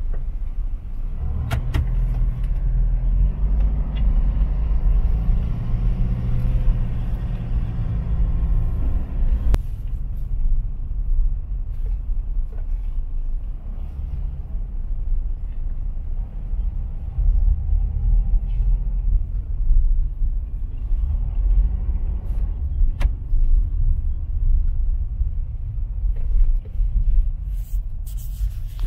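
A car's engine and road rumble heard from inside the cabin while driving slowly, with the engine note strongest in the first third. A few sharp clicks are spread through it.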